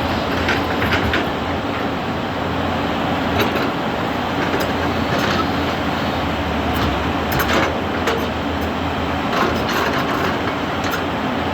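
Excavator diesel engine running steadily, with scattered short metallic clanks and knocks from the machine working.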